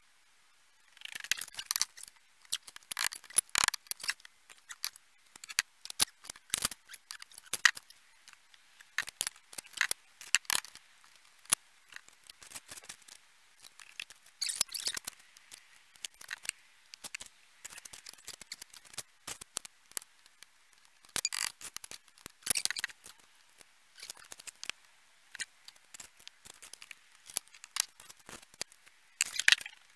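Scratchy strokes of a hand tool brushing and scraping at the fresh mortar joints on a course of bricks, coming in irregular clusters with short pauses.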